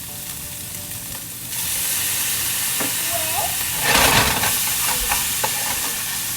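Food stir-frying in olive oil in a pan, a steady sizzle with a few light clicks of stirring. The sizzle swells briefly about four seconds in.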